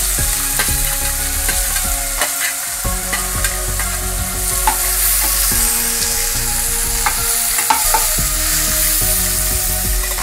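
Chopped onions sizzling in hot oil in a kadai, with a spatula stirring and scraping against the pan in scattered clicks.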